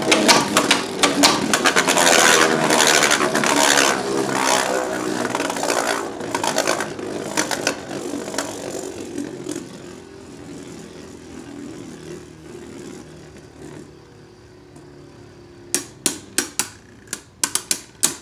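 Two Beyblade Burst tops spinning and clashing in a plastic stadium. Rapid clattering hits thin out and fade over the first eight seconds or so, then a quieter steady whirring as they spin on, with a few sharp clicks near the end.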